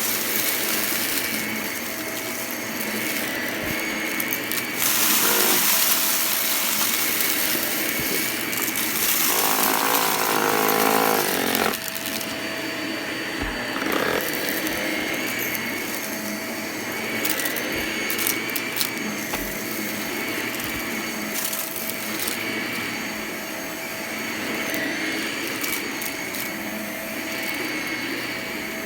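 Vacuum cleaner running steadily, its motor giving a constant hum and whine, with scattered crackles and ticks of crunchy debris being sucked up. A louder, rougher whirr comes in for about two seconds a third of the way in.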